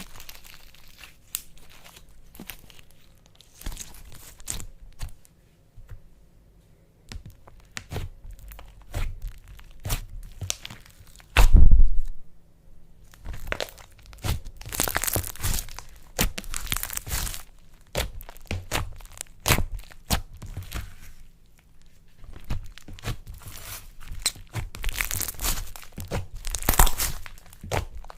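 Close-up crackling, crunching and tearing of a soft handled material, with many small sharp crackles, one loud low thud about eleven and a half seconds in, and longer hissing tears around fifteen and twenty-five seconds.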